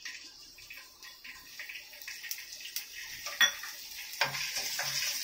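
Coconut pieces sizzling in hot oil in a nonstick pan. The sizzle grows louder and steadier, with a few sharp clinks of a steel bowl against the pan; the loudest clink comes about three and a half seconds in, and a quicker run of taps follows near the end.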